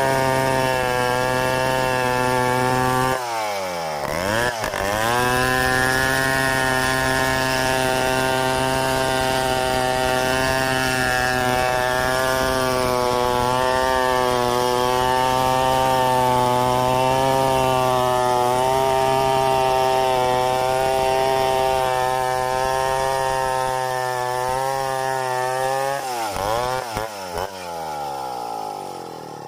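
Stihl 070 two-stroke chainsaw running at steady high revs as it cuts lengthwise through a log in freehand milling. About three seconds in, the revs dip sharply and climb back, and near the end they fall and rise several times as the level drops.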